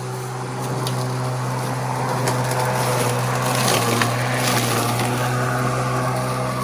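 Sun Joe 24V-X2-17LM 48-volt cordless electric lawn mower running, giving a steady electric hum, with a few short clicks.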